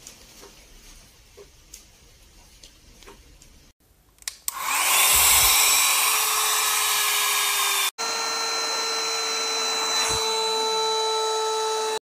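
Portable mini 2-in-1 handheld vacuum cleaner: faint handling and a couple of switch clicks, then its small motor spins up with a rising whine about four and a half seconds in and runs steadily with a loud rush of air. After a sudden cut near eight seconds it is heard running again, a steady whine over the airflow.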